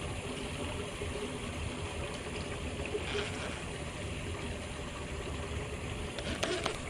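Steady rush of falling water from a waterfall, with a low rumble underneath and a few light clicks near the end.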